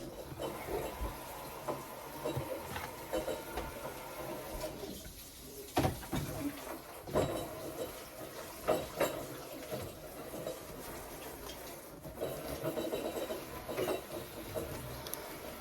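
Scattered light knocks and clatter of bottles and containers being handled during refrigerator cleaning, over a faint steady background noise.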